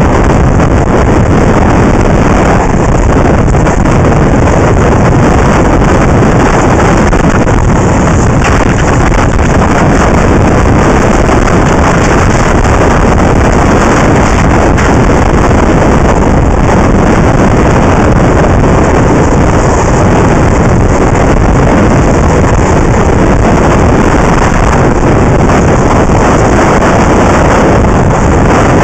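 Steady, loud wind rush on the microphone of a camera carried by an inline skater rolling at speed on asphalt.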